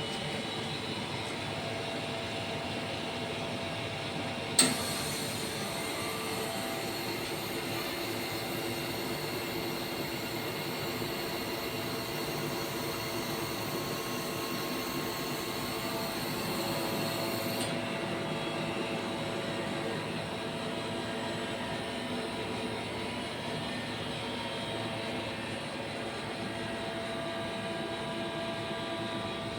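A 30 kW (40 HP) rotary screw air compressor running with a steady hum and several steady tones. About four and a half seconds in, a sharp click is followed by a high hiss that stops suddenly some thirteen seconds later.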